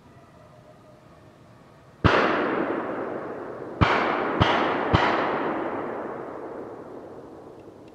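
Four gunshots: one about two seconds in, then three more in quick succession about a second and a half later, each followed by a long echoing decay.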